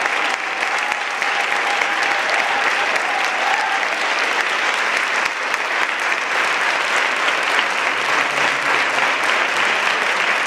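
Audience applauding steadily, a dense, even clatter of many hands clapping, with a faint held tone over it for the first few seconds.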